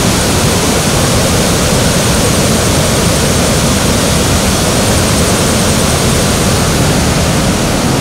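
Steady, loud rush of a swollen, muddy forest stream running in spate below a waterfall.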